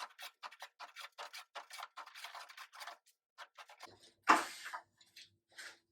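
Low-angle jack plane taking quick, short strokes along a board edge, a rapid run of scraping swipes about three or four a second. A louder knock comes about four seconds in.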